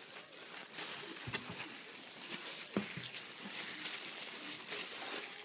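Tissue paper rustling and crinkling as a small child's hands pull it out of a gift stocking, with two knocks about a second and a half and three seconds in.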